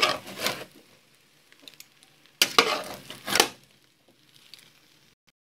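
A metal ladle stirring and scraping cooked biryani rice in a large aluminium pot: two scraping bursts about two and a half seconds apart, the second one longer, with a few faint clicks between.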